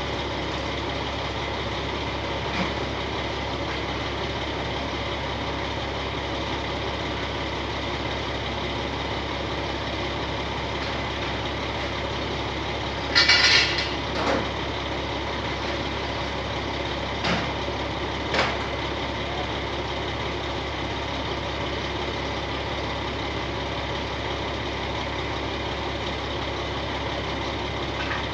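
Heavy diesel engine idling steadily. A brief, louder high-pitched burst comes about 13 seconds in, followed by a few short knocks.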